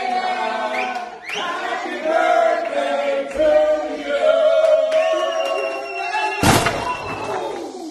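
Several voices singing together in a chorus of sustained notes. About six and a half seconds in, a sudden loud thud cuts across the singing as a face is pushed down into a birthday cake.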